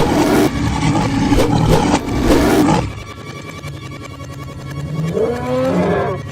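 A big cat's roar, loud and rough, lasting about three seconds, then a quieter wavering animal call near the end.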